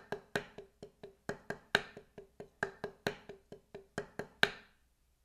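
Drumsticks playing a double paradiddle on a padded practice surface, with accents on the diddles: loud and soft strokes alternate at about six a second. The pattern ends on a loud accented stroke about four and a half seconds in.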